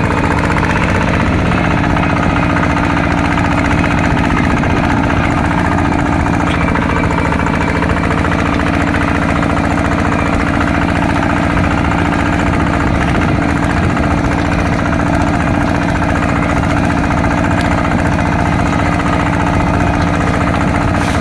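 Small single-cylinder diesel engine of a two-wheel walking tractor running steadily, with an even, rapid knocking beat.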